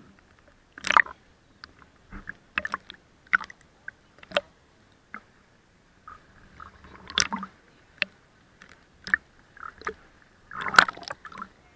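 Seawater sloshing and gurgling against a camera bobbing half-submerged at the surface, with irregular sharp pops and short splashes. The biggest splashes come about a second in and near the end.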